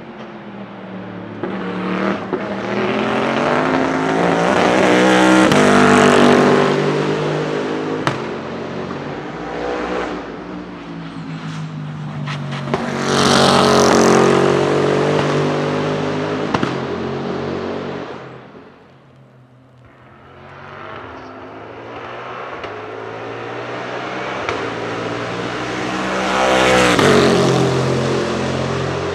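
Bentley Continental GT3 race car's twin-turbo V8 accelerating hard past at full throttle: the engine note climbs, swells and fades away three times, with a few sharp cracks along the way.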